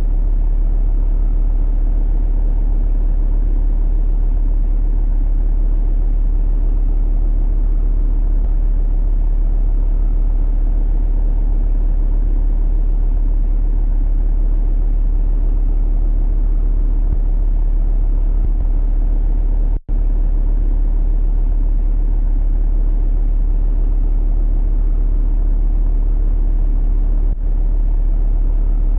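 Loud, steady low rumble like an engine drone, unchanging throughout, with a sudden momentary dropout about twenty seconds in.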